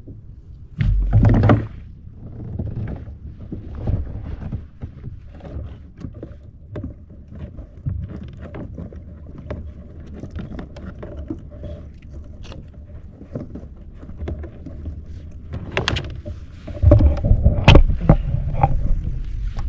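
Handling noises on a fishing kayak: irregular knocks and rubbing against the hull and gear, with a short loud burst about a second in. Near the end comes a longer, louder stretch of knocking as the fish is brought to the landing net.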